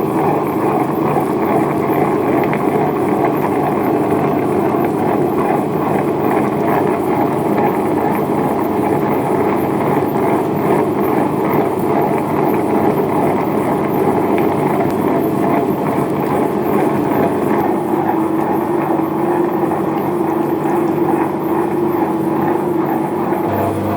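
A steady, continuous motor hum that runs without a break.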